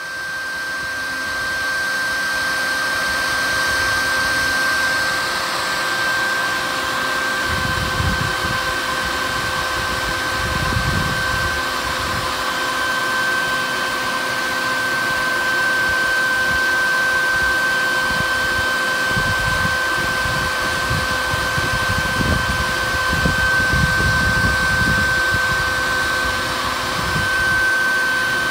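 Colorado Bee Vac bee vacuum running steadily with a high whine and hiss as its short hose sucks honey bees out of a wall cavity, coming up to full level in the first couple of seconds. Low rumbles come and go twice along the way.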